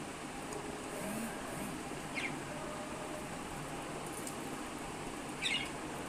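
Budgerigars give two short chirps that sweep downward, about three seconds apart, the second louder, over a steady background hiss.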